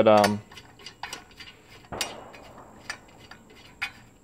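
Steel head bolts being turned down by hand into a Briggs & Stratton flathead engine's cylinder head: scattered light metallic clicks and clinks, with one sharper clink about two seconds in.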